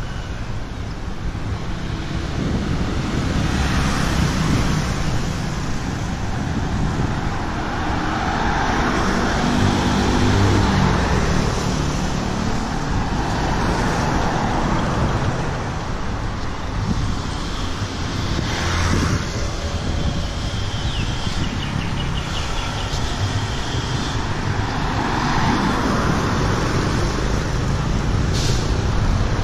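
Road traffic on a city street: cars, pickup trucks and motorbikes driving past one after another, the engine and tyre noise swelling and fading as each goes by.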